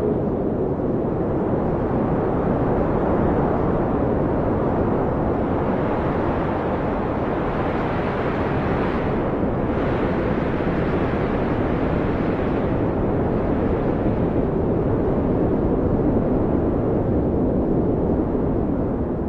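Blizzard wind blowing hard, a steady rushing noise with a faint howling tone that wavers in pitch. A gust swells and brightens about eight to ten seconds in, then eases back.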